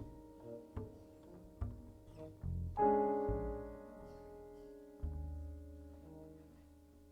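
Quiet jazz passage on piano and double bass: scattered soft notes, then a piano chord struck about three seconds in that rings on, and a low note entering near five seconds as the sound dies away.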